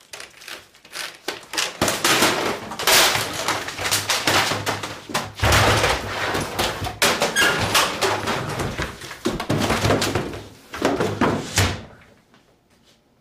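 Repeated crashing, banging and thudding as a computer and other office equipment are hurled and swept off a desk. The racket stops suddenly about a second before the end.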